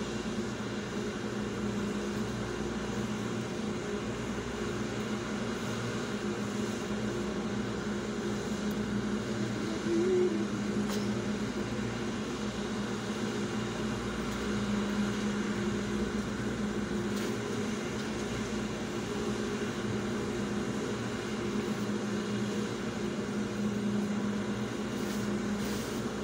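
Steady mechanical hum of an idling engine, with a short squeak about ten seconds in.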